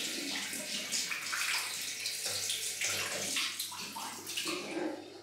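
Tap water running into a bathroom sink and splashing unevenly. It cuts off near the end.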